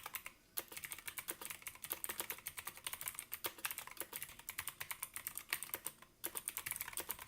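Fast typing on an Arealer Roarer mechanical keyboard with Outemu switches: a quick, uneven run of key clicks, pausing briefly about six seconds in.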